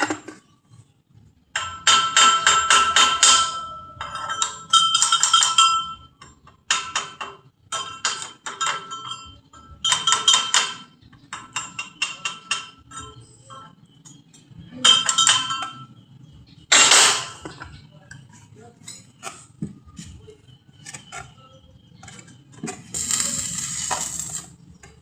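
Steel being struck with a hammer in repeated bursts of rapid blows, the metal ringing at a few steady pitches after each burst.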